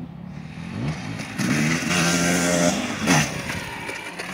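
Dirt bike engine revving up hard about a second in and held at high revs as the bike climbs a jump, with a short sharp rev just after three seconds before it eases off in the air.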